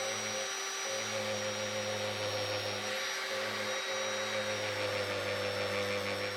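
Electric drill running a long metal bit into a wooden railroad tie: a steady motor whine whose low hum drops out briefly a few times as the load changes.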